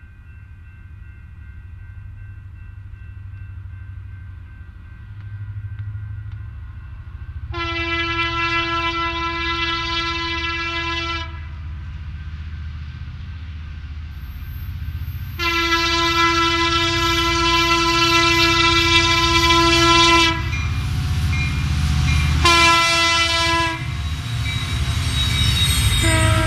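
Horn of a BNSF coal train's lead EMD SD70MAC diesel locomotive sounding two long blasts, then a short one, then the start of a final long one: the grade-crossing signal. Underneath is the rumble of the diesel engines, growing louder as the locomotives approach and pass.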